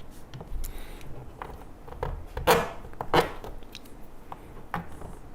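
Scattered knocks and clicks of compost tumbler parts being handled and fitted together during assembly, with two louder knocks about halfway through.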